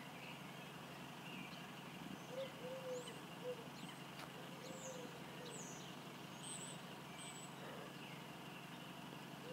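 Faint outdoor ambience: a steady hiss of light rain over a low, constant hum of distant traffic. Small birds chirp now and then, with a few lower calls between them.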